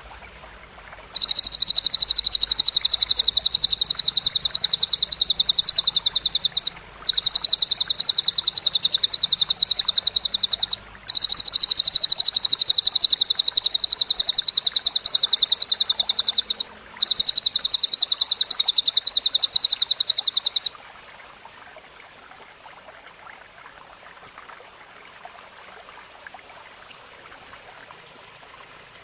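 Belalang (grasshopper) stridulating in four long, very rapid buzzing trills of a few seconds each, separated by short breaks, then stopping about two-thirds of the way in. A faint steady stream-and-insect ambience runs underneath.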